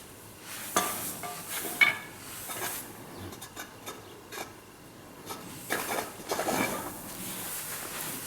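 Metal parts of a grain-heap aerator fan knocking and clinking as they are handled, with a couple of short ringing clanks, then a stretch of scraping and rubbing about two-thirds of the way in.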